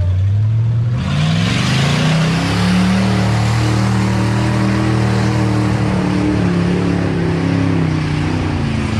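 Motor vehicle engine under throttle. About a second in the revs climb and the sound grows louder, then they hold high before easing down slightly near the end.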